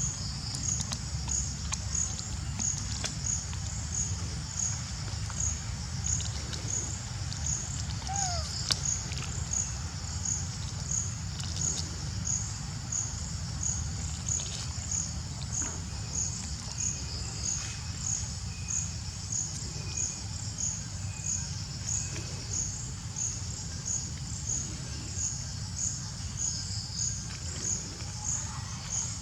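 An insect chirping in a steady, even rhythm, high-pitched, about three chirps every two seconds, over a constant low rumble. A short falling call cuts in once, about eight seconds in.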